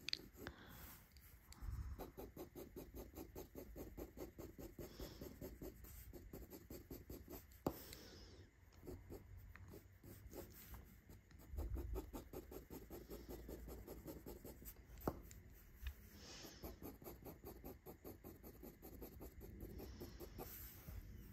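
Graphite pencil hatching on drawing paper: faint, quick scratchy strokes, about ten a second, in runs with short pauses, as a shaded area is darkened with fine hatch lines. A few sharp ticks fall between the runs.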